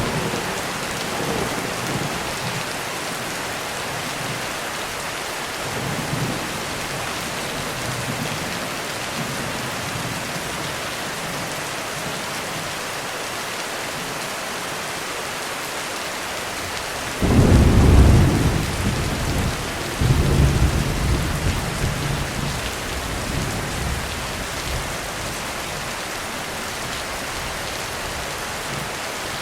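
Heavy rain falling steadily on a roof, with thunder: faint distant rumbles early on, then a sudden loud crack of thunder a little past halfway, a second peal about three seconds later, and a rumble dying away over the next few seconds.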